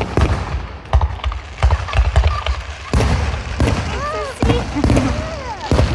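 Fireworks going off in a rapid series of loud bangs and crackles, starting suddenly.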